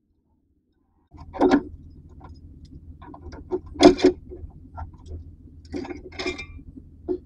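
After a second of silence, scattered metallic clinks and clanks of hand tools and locking pliers on a car's front brake caliper and its freed slide pin, over a low steady hum. The loudest clank comes about four seconds in.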